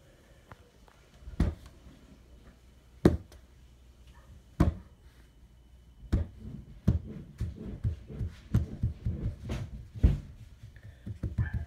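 Three separate knocks about a second and a half apart, then from about six seconds in a quick run of soft thumps and rustling: a hand patting and scratching a shaggy chenille mat beside a Shih Tzu puppy.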